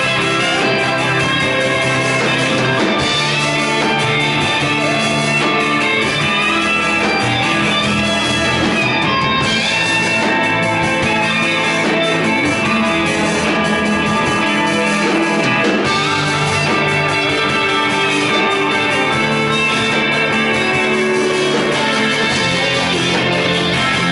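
Rock band playing an instrumental passage: electric guitar lead lines over bass and drums, with no singing.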